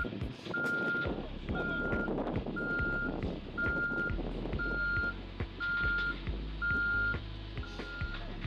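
Construction vehicle's reversing alarm beeping at a steady single pitch, about one half-second beep each second, over the low rumble of a diesel engine running.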